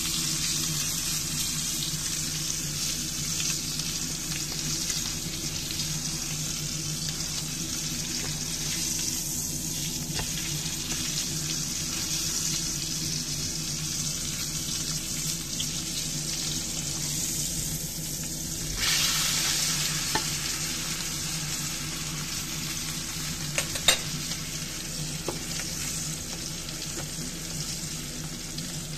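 Bone-in Angus beef steak sizzling steadily in a hot skillet, over a low steady hum. The sizzle flares louder about two-thirds of the way through, and a few sharp taps follow shortly after.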